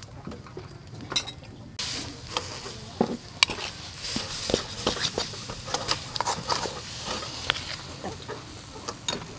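Paste sizzling in hot oil in a steel wok, the sizzle starting suddenly about two seconds in, while a metal spoon and ladle clink and scrape against the wok as it is stirred.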